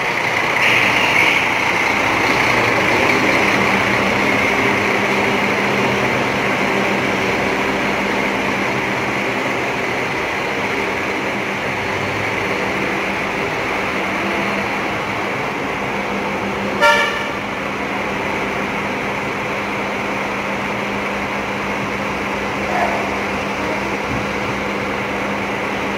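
Coach buses idling in a depot: a steady diesel engine hum with a constant hiss. One short horn toot sounds about two-thirds of the way through.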